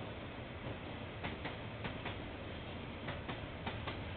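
Freight train wagons rolling past, their wheels clicking over rail joints a few times a second, the clicks often in close pairs, over a steady rumble of the train.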